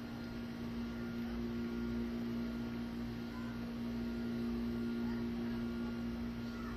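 A steady mechanical hum holding one pitch with fainter higher tones over it, even in level throughout, over a faint low rumble.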